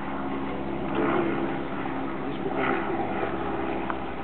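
A steady engine drone, with a few short higher sounds on top about a second in and again a little past halfway.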